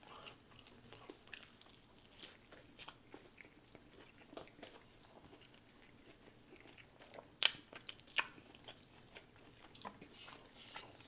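Close-up chewing and biting of fast food: a run of small wet mouth clicks and crunches, with two louder clicks about two-thirds of the way through.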